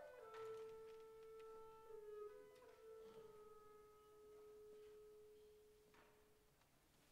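Very soft orchestral passage: a woodwind line steps down onto one long held note that slowly fades away, with a few faint clicks.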